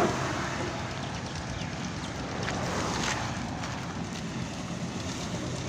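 Steady rushing outdoor noise of wind on the microphone mixed with traffic on the road beside it.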